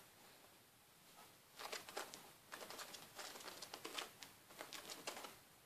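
Kitten scrabbling at fabric cushions and carpet as it plays with string: a quick, uneven run of scratching and rustling from its claws and paws, starting about a second and a half in.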